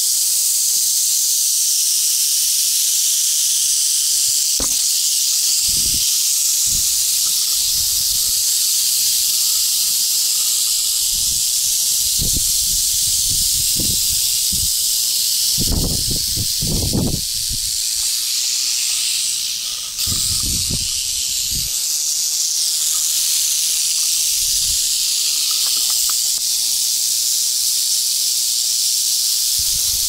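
Many rattlesnakes rattling together at a den: a continuous high, dry buzz that never lets up. Occasional low thumps and rumbles sound under it, most around the middle.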